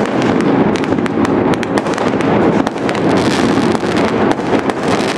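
Chinese New Year fireworks and firecrackers going off all around at once: a loud, continuous crackling barrage with many sharp bangs overlapping, several a second, without a pause.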